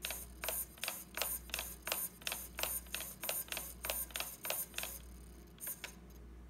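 KST X08 v5.0 micro servo buzzing in short bursts, about three a second, as its arm is driven back and forth; the bursts stop about five seconds in, and two more come near the end.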